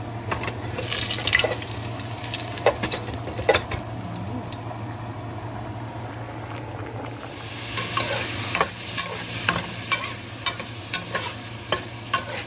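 Garlic and shrimp frying in oil in a pan, sizzling, with a spoon clicking and scraping against the pan as it stirs. About seven seconds in, the sizzle grows to a louder, steadier hiss.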